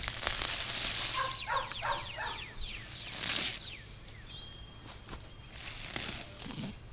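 Bursts of rustling as weeds and garden plants are handled and pulled, with birds chirping in short falling notes between them.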